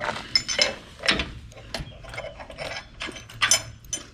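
Steel bolts and brackets of a BowStep boat-trailer step clinking and clicking as the bolts are fitted through the mounting holes: irregular sharp metal clicks and taps.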